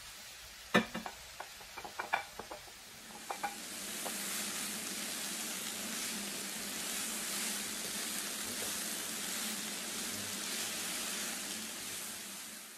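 Julienned vegetables sizzling in a hot frying pan as they are stirred with a wooden spatula. A few sharp clacks of the spatula against the pan come in the first three seconds, then a steady sizzling hiss that fades near the end.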